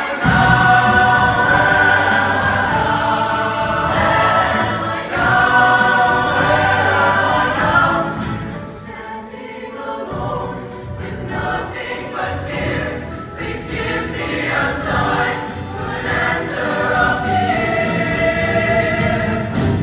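Mixed show choir singing in full harmony, with live band accompaniment underneath. About eight seconds in, the low accompaniment drops away and the music softens for a couple of seconds before the full sound comes back.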